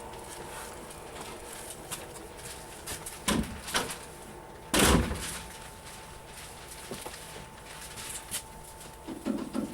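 Slam door of a British Rail 2EPB electric unit shutting with one loud bang about five seconds in, among a few smaller knocks and clicks and a faint steady hum. There is a further cluster of knocks near the end.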